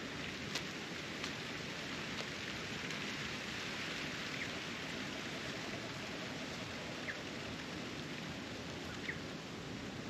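Steady rushing wind noise, with a few faint ticks in the first second or so and three short, faint high chirps spread through the rest.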